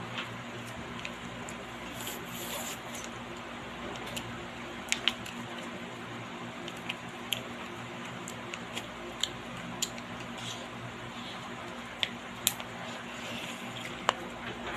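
Someone eating a dessert: scattered small clicks and taps, a few a second at most, over a steady background hiss.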